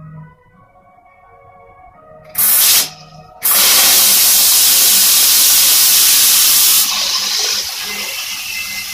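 Handheld bidet sprayer (health faucet) squirting water into a toilet bowl: a short squirt about two and a half seconds in, then a loud steady hissing spray from about three and a half seconds, dropping to a softer spray about seven seconds in.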